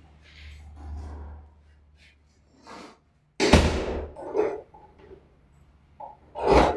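Knocks from the door and its newly fitted knob and latch: a sharp knock about three and a half seconds in, a lighter knock a second later, and another loud knock near the end.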